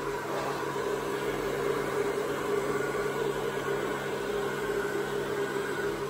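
Handheld hair dryer running steadily: a constant rush of air over a low motor hum.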